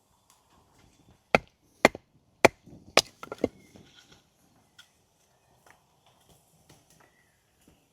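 Wood being chopped: four sharp strikes about half a second apart, followed by a couple of lighter knocks.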